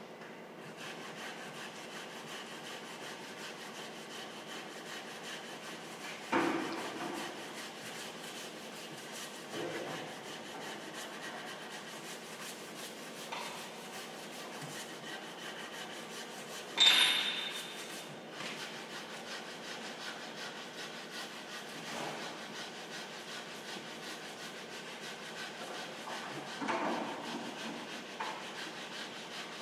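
Steady workshop background noise with a handful of scattered knocks and clanks from work on a pickup's body. About halfway through comes one louder, sharp metal clang that rings briefly.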